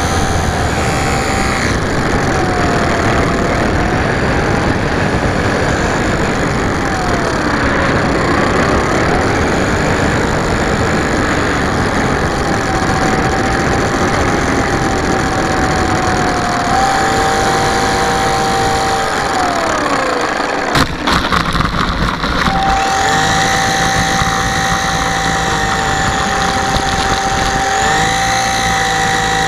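Onboard sound of a Super Cub LP electric RC plane's motor and propeller running, the pitch rising and falling with throttle. About twenty seconds in, a short rattle of knocks comes as it touches down on the grass, and then a steady whine resumes.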